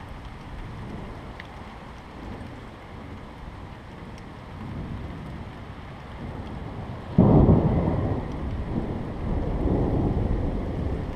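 Thunderstorm at night: a steady hiss of rain, then about seven seconds in a sudden loud clap of thunder that rolls on in a low rumble.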